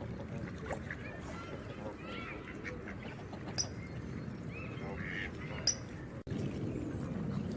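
Geese honking in short, arched calls over a steady rush of water, with two sharp clicks partway through.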